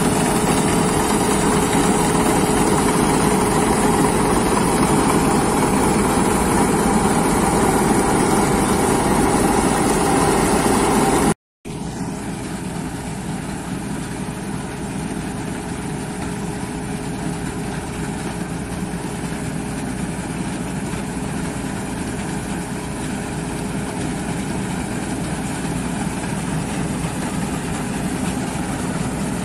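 Bizon Rekord Z058 combine harvester running steadily while cutting grain, its six-cylinder diesel engine and machinery close by. About a third of the way in the sound breaks off for an instant and comes back quieter, with the combine further off and coming closer, growing slightly louder toward the end.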